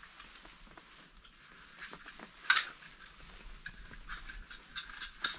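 Small clicks and rustles of hands handling ice-fishing tackle at a short rod, with one sharper click about two and a half seconds in.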